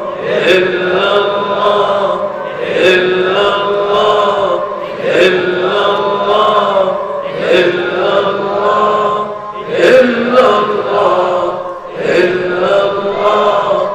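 Dhikr chanting: a short devotional phrase sung over and over in a steady cycle, a new repetition starting about every two and a half seconds.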